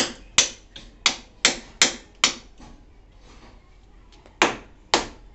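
Hammer striking a cold chisel to break out cast concrete: sharp metallic knocks, about seven in quick succession, then a pause of nearly two seconds and two more strikes near the end.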